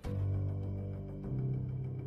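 Dark, dramatic background music of low sustained notes. A loud low note comes in suddenly at the start, and another takes over just over a second in.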